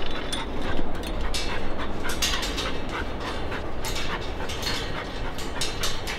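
A dog's claws and paws clicking and tapping on perforated steel stair treads as it makes its way down a metal stairway, in short, irregular steps.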